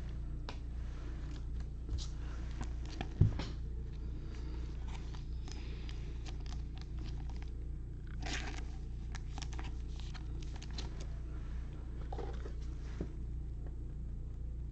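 Trading cards and pack wrappers being handled: quiet rustles and small clicks over a steady low hum, with one sharp knock about three seconds in.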